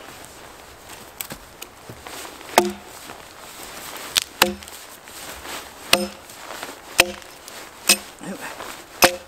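Axe chopping branch stubs off a felled log: six sharp strikes, starting a couple of seconds in and coming about a second apart, each with a brief ring.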